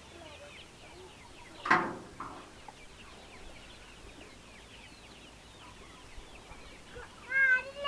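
A flock of young Giriraja chickens cheeping, a steady scatter of small high chirps. A brief loud sound stands out about two seconds in, and a louder high call starts near the end.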